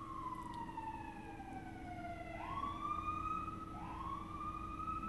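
Emergency vehicle siren wailing: its pitch slides slowly down for a couple of seconds, then sweeps back up, twice.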